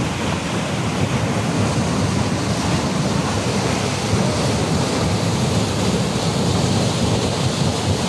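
Rushing whitewater of the creek in flood, pouring through a narrow rock chute at the brink of the Basaseachi waterfall: a loud, steady rush.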